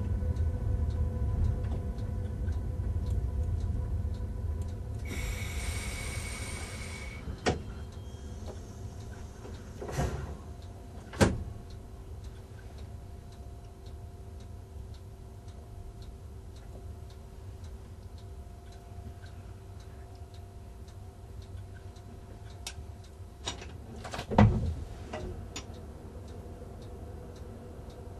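Low rumble of a passing train hauled by a DB electric locomotive, fading away over the first several seconds. After that the cab is quiet, with a brief hiss about five seconds in and a few scattered knocks.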